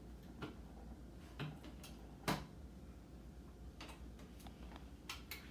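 Faint, scattered clicks and taps of hands handling parts on a flat-screen monitor's metal back panel during teardown, with one sharper knock a little over two seconds in.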